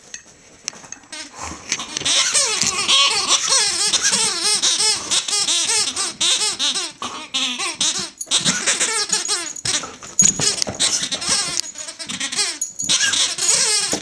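Greyhound chewing a rubber squeaky toy, setting off a run of high, wavering squeaks that rise and fall with each bite, broken by short gaps, starting about two seconds in.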